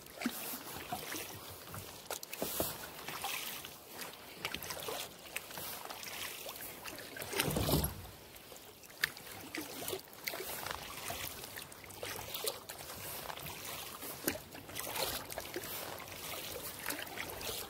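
Kayak paddle strokes in calm lake water, the blades dipping and splashing again and again, with one louder stroke about halfway through.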